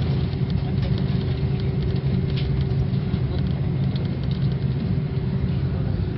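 Passenger aeroplane cabin noise: a steady low engine rumble with a faint steady hum, heard from inside the cabin as the plane moves on the ground toward takeoff.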